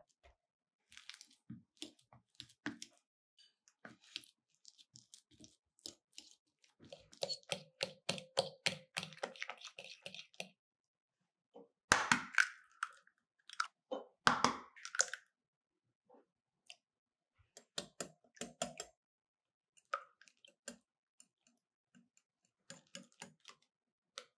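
Ripe bananas squashed in a glass bowl, a run of soft squishing and small clicks against the glass. Two eggs are then cracked, two loud sharp cracks about two and a half seconds apart near the middle, followed by short bursts of clicking as the banana and egg batter is mixed in the bowl.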